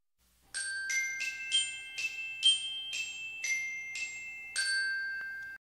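Short intro music jingle of about ten struck, ringing bell-like notes played as a melody, cut off abruptly near the end.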